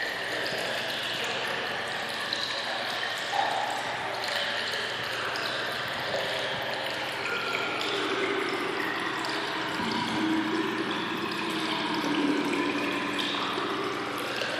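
Water running and gurgling steadily, with many short ringing pings scattered through it.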